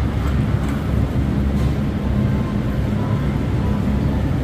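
A steady, loud low drone of running machinery, even throughout, with a constant low hum under it.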